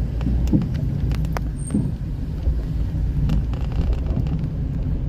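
Car driving slowly in city traffic, heard from inside the cabin: a steady low rumble of engine and tyres, with a few light clicks.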